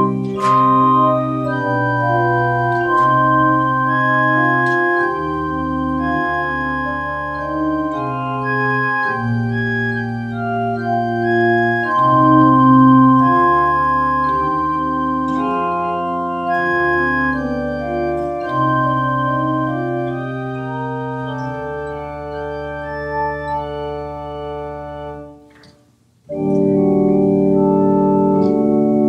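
Organ playing slow, sustained chords over changing bass notes. The music breaks off briefly near the end, then starts again.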